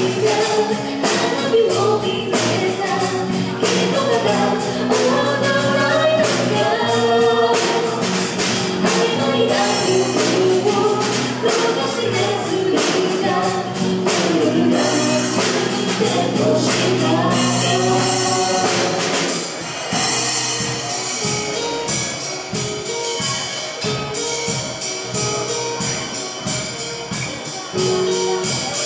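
Live band playing a pop song: a woman singing the melody over electric and acoustic guitars with a steady beat. The music gets quieter and sparser about twenty seconds in.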